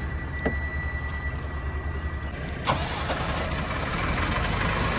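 Tata diesel truck engine being started from the cab: a sharp click about two and a half seconds in, after which the engine runs louder and steadier.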